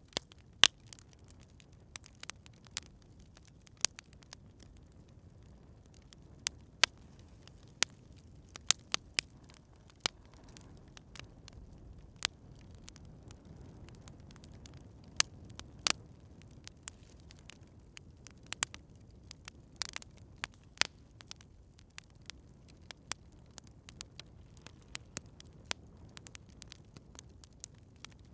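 Wood campfire crackling: irregular sharp pops and snaps, some close together and a few louder than the rest, over a low steady rush of the burning fire.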